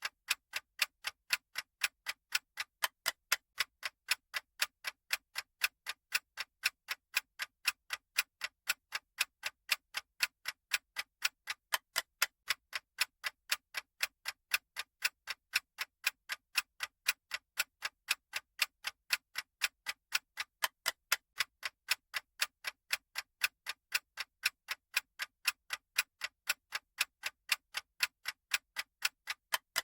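Clock ticking sound effect: a steady, even run of sharp, crisp ticks, several a second, alternating louder and softer like a tick-tock, marking a countdown timer running.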